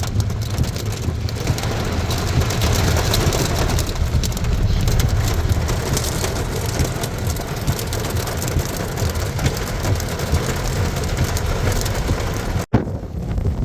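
Storm-force wind gusting hard against the microphone with a heavy low rumble, over a dense crackling patter. A brief dropout near the end, then the wind noise resumes.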